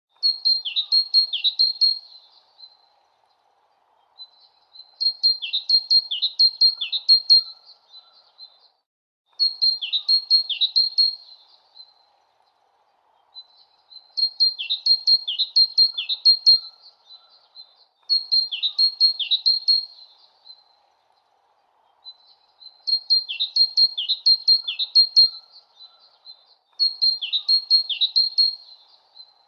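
A bird singing the same short phrase over and over, about every four seconds: a quick run of high chirps with two or three down-slurred notes in each, separated by pauses, over a faint steady background hiss.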